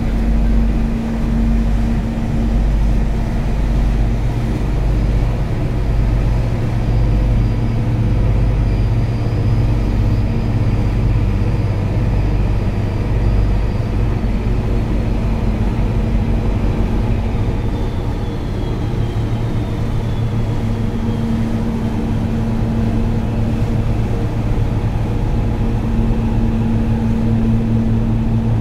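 Marine diesel engines droning steadily at a deep, even pitch, with a faint high whine that drifts down in pitch about midway.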